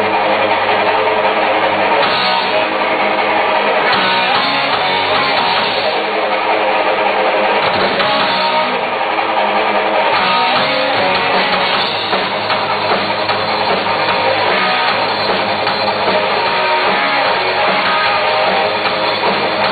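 A rock band playing a song live, led by distorted electric guitar over drums, as a run-through during a sound check.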